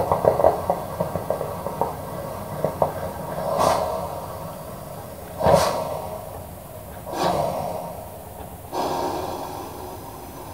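Coffee maker gurgling and puffing steam: crackly sputtering at first, then four separate hissing gurgles a second or two apart.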